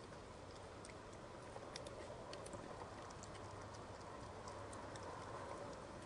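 Faint steady hiss with scattered small, sharp clicks and ticks at irregular intervals: a raccoon picking at and crunching corn at a wire feeder tray.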